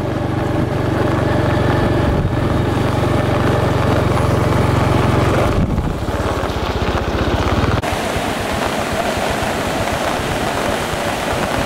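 Motorcycle engine idling steadily, then running unevenly before cutting off abruptly about eight seconds in, over the steady rush of floodwater pouring across a road; the water alone is heard after the engine stops.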